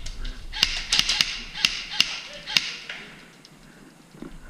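Scattered single shots of airsoft gunfire: about seven sharp cracks in the first three seconds, each echoing in the indoor arena, then it goes quiet.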